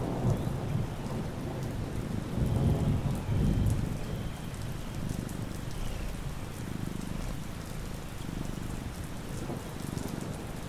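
Steady rain falling with thunder, the thunder loudest about two to four seconds in and then fading.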